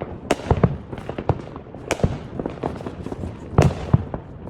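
Fireworks going off in an irregular string of bangs and crackles, with three louder cracks about a second and a half apart.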